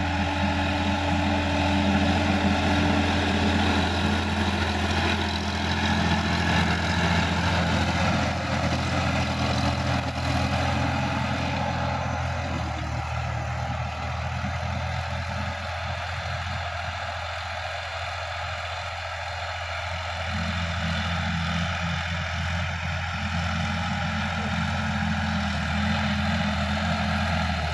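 Sonalika DI-50 RX tractor's diesel engine running steadily under load while it pulls a rotary tiller through dry soil. It grows a little fainter midway as the tractor works away, then louder again near the end.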